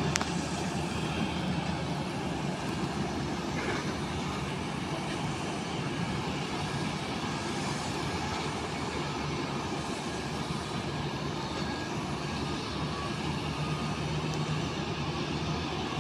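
Steady airport apron noise: distant jet airliners' engines running as they taxi, mixed with the hum of ground service vehicles.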